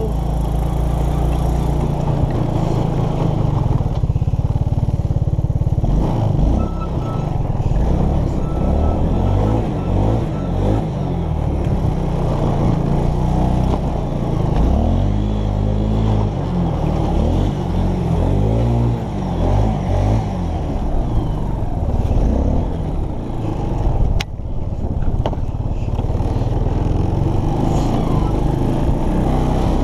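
ATV engine running as the quad is ridden slowly over rough ground, its pitch rising and falling with repeated throttle changes. One sharp knock about 24 seconds in.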